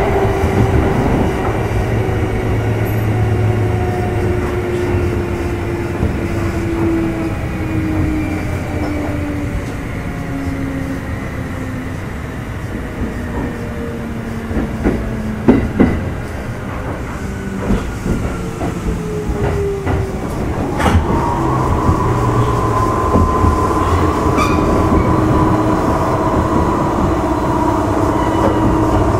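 Kintetsu 1810 series electric train running, with the motor and gear whine of motor car Mo 1826 and the rumble of its wheels on the rails. The whine falls slowly in pitch as the train slows, with a couple of sharp rail-joint clacks about halfway. About 21 s in, a new, higher whine comes in and the running grows louder.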